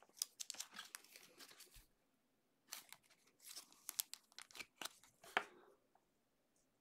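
Faint rustling, scraping and light clicks of a trading card being handled and slid into a rigid plastic toploader, in two short bouts.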